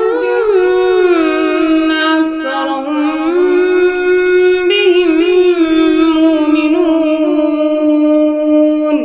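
A woman's voice reciting the Quran in a slow, melodic chanted style, with gliding ornaments and long drawn-out notes. Near the end one note is held steady for a couple of seconds.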